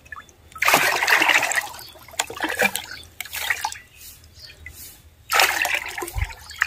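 Watery aloe vera and buttermilk mix poured from a plastic mug into a plastic bucket, twice: once about half a second in, and again about five seconds in, each pour lasting a little over a second. Smaller splashes and drips are heard between the pours.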